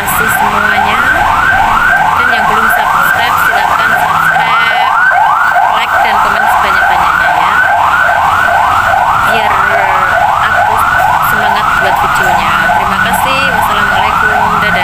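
Electronic siren in yelp mode: a loud, steady run of quick rising sweeps, about three a second, that neither fades nor changes pitch.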